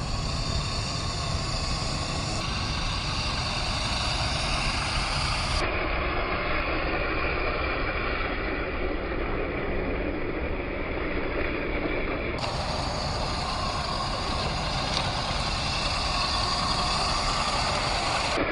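1/10-scale RC4WD TF2 crawler driving off-road: a steady whine from its electric motor and gears, with tyre and ground noise. The sound changes abruptly a few times where separate clips are joined.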